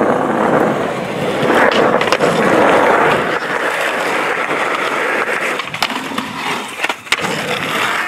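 Skateboard wheels rolling over rough concrete, interrupted by several sharp clacks of the board striking the ground: tail pops and landings of flip tricks, a few near the end.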